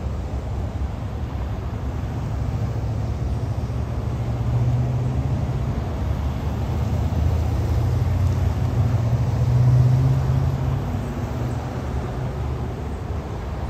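Motor vehicles passing on a road: a steady low engine and tyre rumble that swells to its loudest about ten seconds in, then eases.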